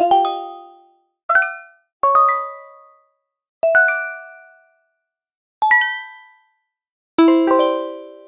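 A series of short notification bell chimes, one after another with silence between: six separate chimes, each a quick run of two or three bright struck notes at different pitches that ring briefly and fade.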